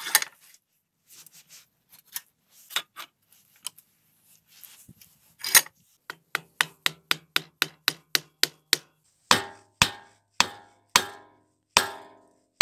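Hammer blows driving the crosscut saw's beech handle down into its steel socket. After a few scattered knocks comes a quick run of light blows, about four a second. Then come heavier blows a little over half a second apart, each leaving the metal ringing.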